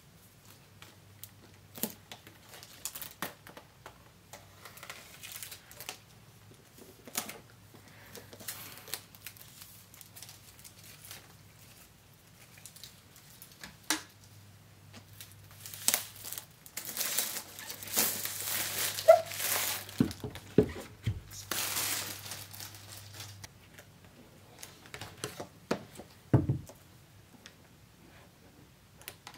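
Plastic wrapping crinkling and tearing as it is pulled off an iPad Air box, loudest in a long stretch about halfway through, amid scattered taps and rustles of the box being handled, with a dull thump near the end.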